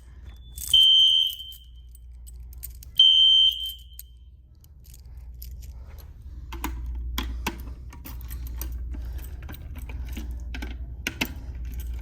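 An electronic fire alarm device gives two long, high beeps about two seconds apart, then falls silent. After that, a bunch of keys jangles and clicks.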